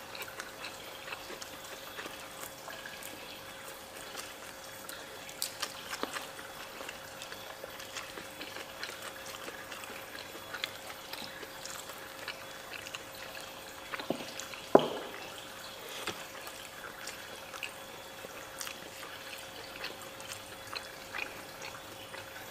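Close-up eating sounds of two people eating rice and fish with their hands: wet chewing and lip-smacking with small clicks of fingers and food on plates, over a faint steady hum. One sharper knock about fifteen seconds in is the loudest sound.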